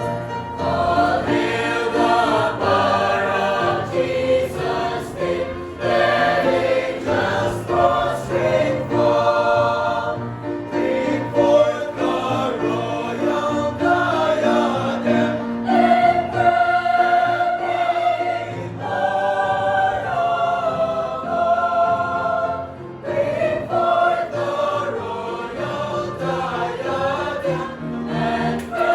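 A church choir singing a hymn in parts with accompaniment, with held notes and phrase breaks.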